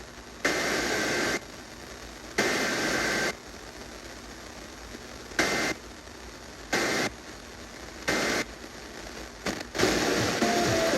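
Emergency Alert System digital data bursts received over FM radio: three harsh, buzzy header bursts of about a second each, then three shorter end-of-message bursts, with radio hiss between them. The station's music comes back in near the end.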